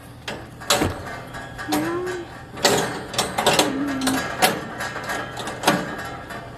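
Metal grill parts being handled and fitted during assembly: a series of sharp knocks and clanks, irregular, about one every second or so.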